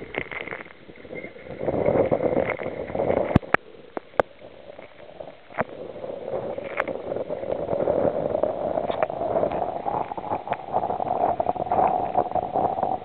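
Sea water splashing and rushing around a kayak being paddled through rough water, swelling and easing. A few sharp knocks come a few seconds in.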